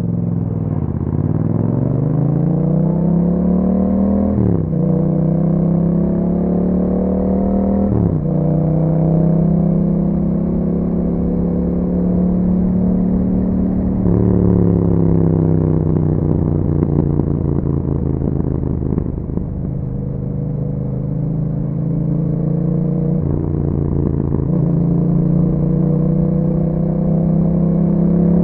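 2021 Yamaha MT-07's parallel-twin engine through an Akrapovic exhaust, pulling up from low revs, with quick upshifts about four and eight seconds in, then holding steady cruising revs.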